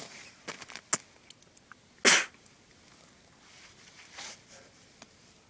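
A man lets out one short, loud, sharp burst of breath about two seconds in, preceded by a few faint clicks.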